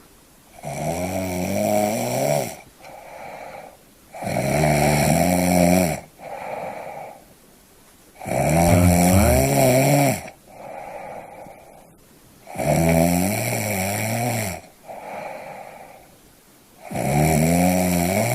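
Snoring in a steady rhythm: a long, loud snore about every four seconds, five in all, each followed by a shorter, quieter one.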